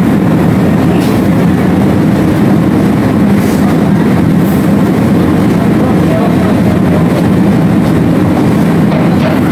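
Heavy engine drone, loud and steady with a constant low hum, filling a ferry's enclosed vehicle deck.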